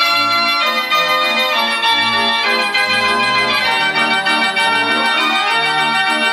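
Dutch street organ 'De Arabier', built by G. Perlee of Amsterdam, playing a tune: a pipe melody over a regular bass accompaniment.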